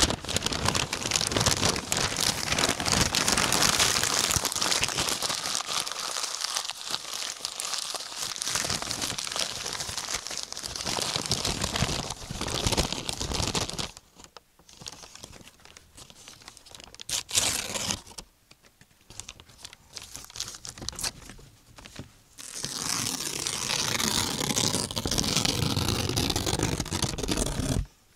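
Paper being crumpled and torn: dense crackling for about the first half, then quieter scattered rustles with one short loud burst, then another stretch of steady crackling that stops abruptly near the end.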